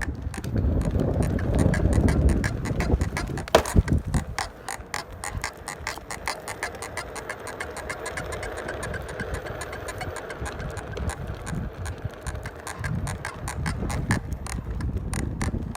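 Onewheel electric board giving off a fast, regular clicking, several clicks a second, after a low rumble in the first few seconds. The owner takes it for a loud click/squeak that has come up on an almost new board.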